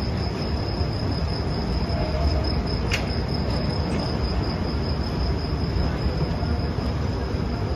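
Freight train of flat wagons loaded with lorries rolling past at a steady pace, a continuous low rumble of wheels on rail. A steady high-pitched whine sits on top, and there is one sharp click about three seconds in.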